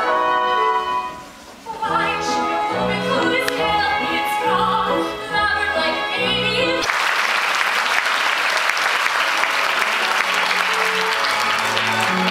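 Cast of a stage musical singing with instrumental accompaniment. A number ends about 7 s in and the audience breaks into applause, with the music going on faintly under the clapping.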